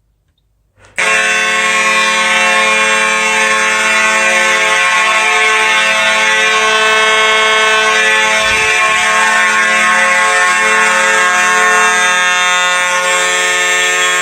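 Two Simplex 4903 mechanical fire alarm horns sound together in a continuous buzzy blare. It starts abruptly about a second in and runs without pulsing, the two horns' tones beating against each other.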